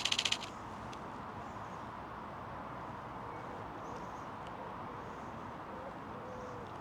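A rapid burst of camera shutter clicks, a continuous high-speed burst, stops about half a second in; after that only a steady outdoor background hiss remains.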